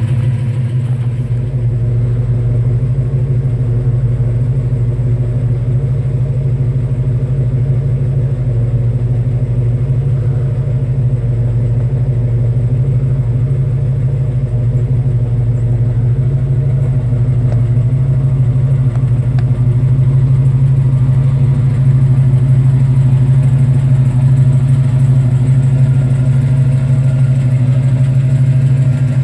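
1970 Ford Torino GT's 351 Cleveland four-barrel V8 idling steadily.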